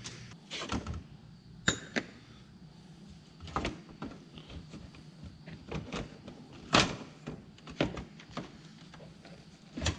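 Scattered clicks and knocks of hard plastic as a pickup's headlight assembly is worked loose and pulled out of its housing, with the sharpest knock about seven seconds in.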